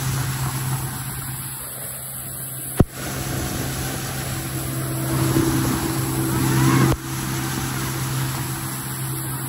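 Boat motor running steadily at speed: a continuous low drone with wind and water noise over it, a faint rising whine near seven seconds, and two sharp clicks about three and seven seconds in.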